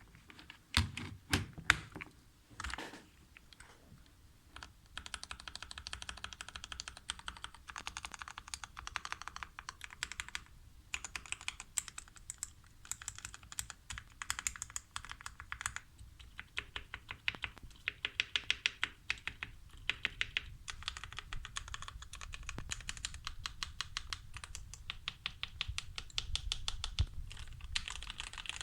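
Typing on a Redragon mechanical keyboard with lubed switches: a few separate key strikes, then steady fast typing with short breaks.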